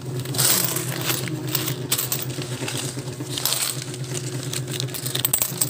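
A loose pile of peso coins clinking and jingling against each other as it is stirred and sorted by hand, in irregular runs of small metallic clicks.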